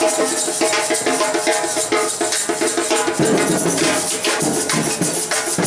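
Music driven by drums and hand percussion, with a steady beat and sustained melodic tones over it.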